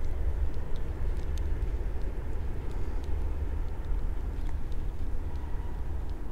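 Wind buffeting the microphone: a constant low, fluttering rumble, with a few faint clicks above it.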